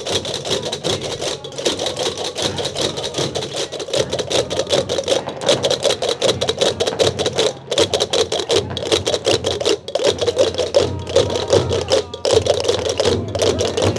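Many pairs of Gomeran chácaras, large wooden castanets, clacking together in a dense, rapid, continuous rattle as a group of players walks along.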